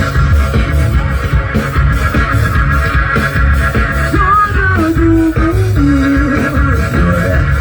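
Live band music with a steady driving beat, bass and guitar, an instrumental stretch without vocals.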